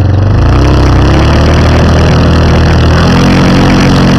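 ATV engine running hard under load as the quad churns through deep mud, wheels spinning; its pitch shifts and rises again about three seconds in.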